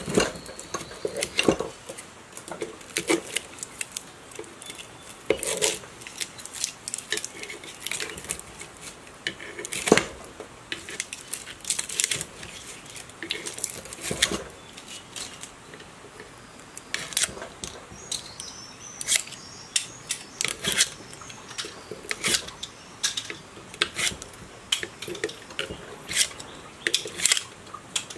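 Steel hand tools clinking and scraping against the iron stator core and casing of an old electric motor as the copper windings are gripped with pliers and pried out of the slots. Irregular sharp metallic clicks and taps, a few at a time, with short pauses between.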